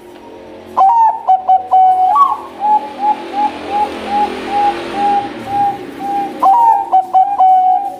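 Zebra dove (Bangkok perkutut) cooing. A few loud clipped notes about a second in lead into a run of about a dozen short, evenly spaced coos, and another loud group of notes comes near the end.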